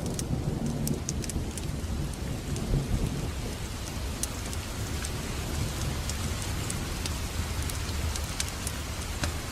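Wood fire burning in a fireplace: scattered sharp crackles and pops over a steady low rumble of the flames.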